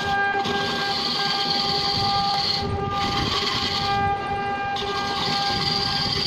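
Wood lathe running with a steady whine while a hand-held gouge cuts into the spinning wooden blank, giving a rasping cutting sound that breaks off briefly twice, about two and a half seconds in and again around four seconds.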